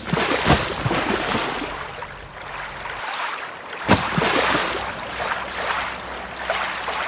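Rushing, splashing water that surges suddenly at the start and again about four seconds in, then dies down.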